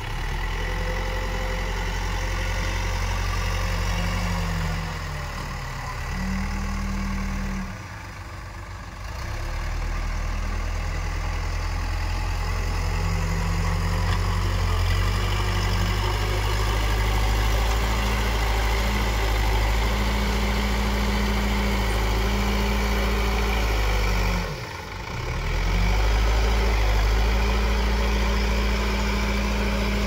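Diesel engine of an Escorts Digmax backhoe loader working under load as its front bucket pushes into and lifts soil, revs stepping up and down. Twice the engine note drops off briefly before picking up again, about a quarter of the way in and again past three-quarters of the way.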